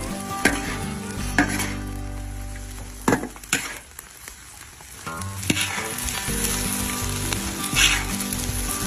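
Fish frying in a pan, sizzling, with a few sharp clinks against the pan. The sizzle dies down for a moment a little past halfway.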